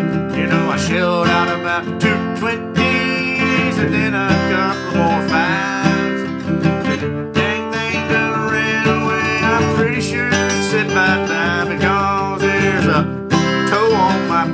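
Steel-string dreadnought acoustic guitar played with a flat pick in an instrumental break: strummed chords mixed with lead notes that bend up and down in pitch.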